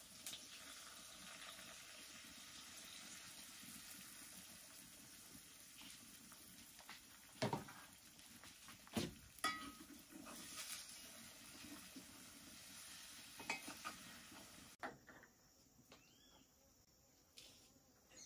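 Beaten egg and sausage sizzling in a wok, with a metal spoon knocking and scraping against the pan a few times. The sizzle cuts off suddenly about 15 seconds in, leaving a quiet background with a few faint chirps.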